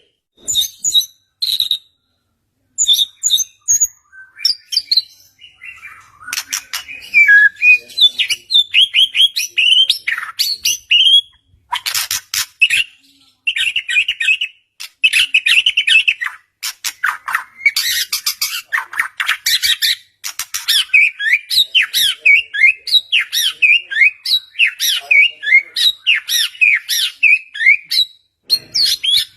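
White-rumped shama (murai batu) singing a loud, varied song of clear whistles and fast rattling trills, broken by short pauses and turning into a continuous run of quick notes in the second half. This is the kind of full song used as a lure to get a silent shama to answer.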